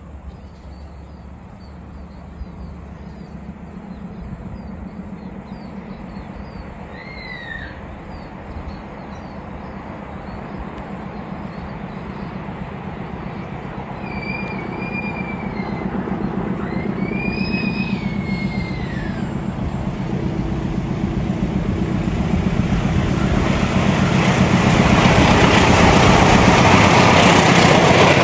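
KAI CC 206 diesel-electric locomotive approaching with its passenger train: the diesel engine's low drone grows steadily louder, and the rush of wheels on the rails swells over the last few seconds as it comes alongside. A few short whistle-like calls, each rising then falling in pitch, sound around the middle.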